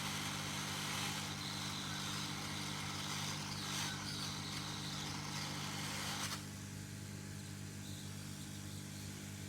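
Hot-air rework blower running: a steady hiss of air over a low electrical hum as it heats the processor's solder. The hiss drops off abruptly about six seconds in.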